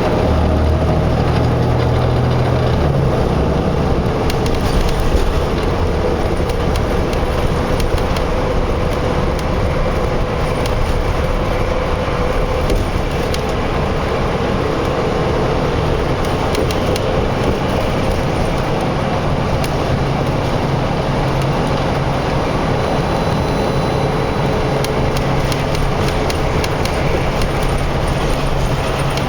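Steady road traffic and heavy construction machinery running, with a continuous low engine drone and scattered small clicks and knocks.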